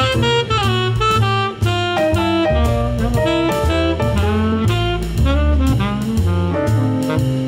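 Background jazz music: a saxophone playing a melody over bass and a drum kit.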